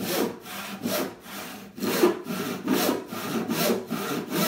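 Handsaw ripping lengthwise down through a 2x4 (resawing), the teeth rasping through the wood in steady back-and-forth strokes, about three a second.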